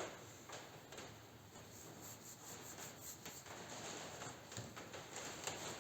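Irregular rubbing strokes of hand sanding, as the edges of a homemade sanding block are sanded down.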